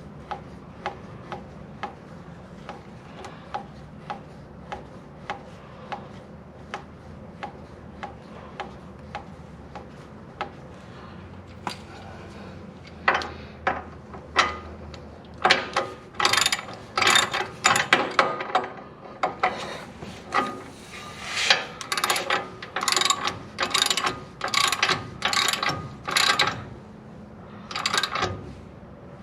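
Hand socket ratchet clicking while tightening the castle nuts on the ball-joint studs of a truck spindle: slow, even clicks at about one and a half a second, then from about halfway louder, quicker runs of clicks.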